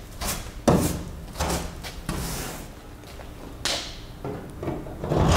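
Handling noises: irregular knocks, scrapes and brushing as a stainless steel U-bolt tow eye is test-fitted into freshly drilled holes in an aluminium boat stem. The sharpest knock comes just under a second in, and a louder scraping rush comes at the very end.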